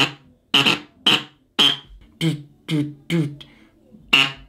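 Duck Commander gadwall call blown in a series of short notes, about two a second, imitating a gadwall.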